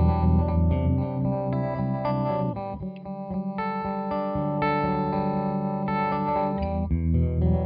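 Electric guitar chords played through a CopperSound Loma Prieta harmonic tremolo pedal into an amp, the sound pulsing rapidly. The playing eases off about three seconds in, and a heavy low chord comes back near the end.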